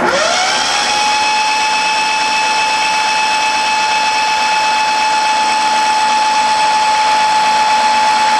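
Electric starter motor cranking a Yanmar YM1401D three-cylinder diesel with the compression release pulled, so the engine spins freely without firing: a whine that rises over the first second and then holds steady. The cranking pumps fuel through the loosened injector lines to purge air from the fuel system.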